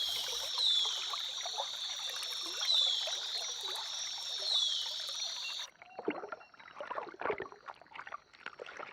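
Rainforest river ambience: a shrill, high-pitched chorus with repeated falling notes. About five and a half seconds in it cuts off suddenly to quieter water sloshing and splashing.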